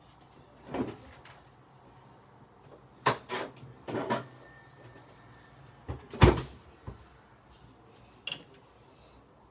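Kitchen things being fetched and handled: a series of separate knocks and clunks, like cupboard doors and containers, the loudest about six seconds in.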